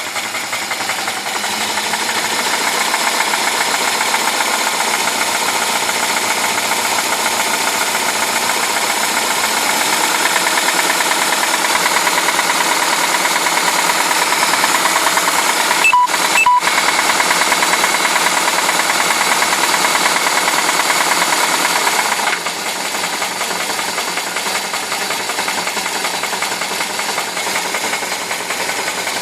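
Moskvich UZAM-412 inline-four engine running with a knock. It gets louder about two seconds in and drops back quieter about 22 seconds in.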